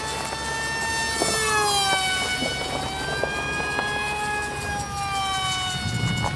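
Electric motor and propeller of a high-speed RC flying wing (Zoom 370 brushless motor) whining in flight. The whine is high and shrill, and its pitch drops about one and a half seconds in, holds steady, then slides down again near the end.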